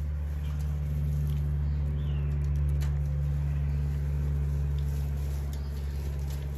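A steady low hum, with faint scattered clicks and a brief high chirp about two seconds in.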